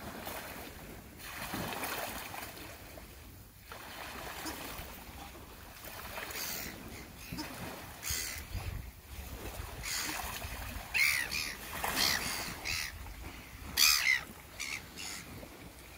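Red-billed gulls squabbling, giving a series of short, harsh squawking calls that come more often and louder in the second half, over a soft wash of water.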